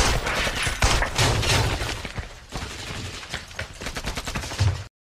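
Gunfire: a rapid fusillade of shots, densest in the first two seconds, then fewer and quieter shots, cutting off abruptly near the end.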